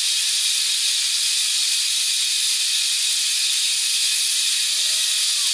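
Pressure cooker on a gas burner at full flame, letting off steam in a steady, loud hiss.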